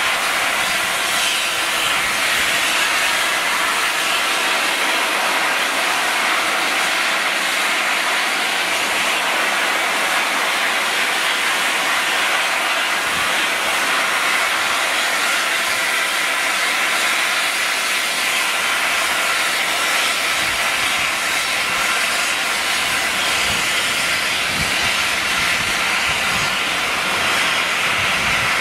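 Steady loud hiss of steam escaping from standing steam locomotive 35028 Clan Line, a rebuilt Southern Railway Merchant Navy class 4-6-2.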